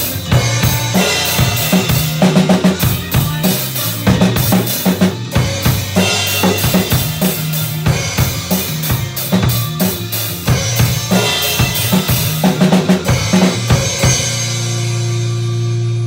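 Acoustic Yamaha drum kit played with sticks, bass drum, snare and cymbals in a dense beat over a recorded backing track with a moving bass line. Near the end the drumming stops and a held chord from the backing track keeps sounding.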